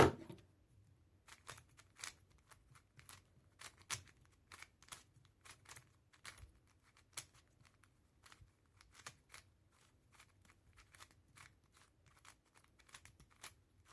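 Plastic puzzle cube being turned by hand: irregular quiet clicks and snaps of the layers turning, a few a second, with a few louder snaps.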